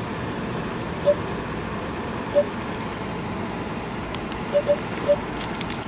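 Car wash pay station keypad beeping as a wash code is keyed in: short single beeps, one per button press, at uneven intervals, with two close together near the end. Underneath is a steady background rumble.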